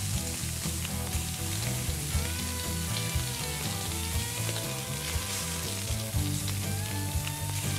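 Chicken wings sizzling on the hot grates of a gas grill, a steady hiss, with background music carrying a low bass line.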